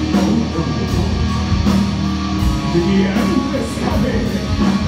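Hard rock band playing live: distorted electric guitar over a steady drum beat with cymbal hits.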